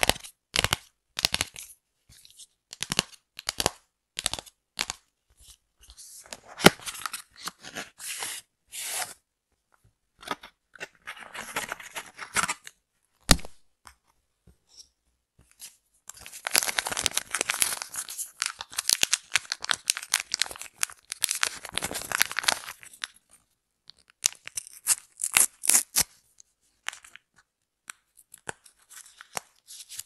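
Close-up handling of a screen protector's cardboard packaging: a run of sharp taps and clicks, then rustling. From about halfway, a longer stretch of crinkly tearing as the kit's small cleaning-wipe sachets are torn open and handled, with scattered rustles and clicks near the end.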